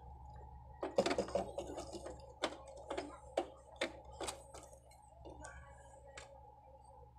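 Clicks and rattles of ribbon cables, connectors and circuit boards being handled inside an opened amplifier: a burst of rattling about a second in, then sharp single clicks roughly every half second, fading out after about four and a half seconds. A faint steady hum lies underneath.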